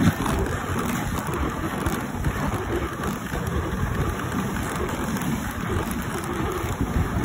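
Dog sled gliding along a packed snow trail: a steady rushing noise heard from aboard the sled.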